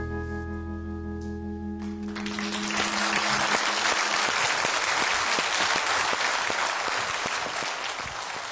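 A live band's closing chord on guitars and keyboard rings and dies away about two seconds in, then a studio audience applauds.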